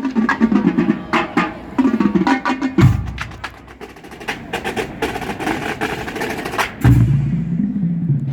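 Marching band playing: brass over a drumline with many sharp, clicking snare strikes. About three seconds in the low horns drop out, leaving mostly percussion, and the full band with low brass comes back in near the end.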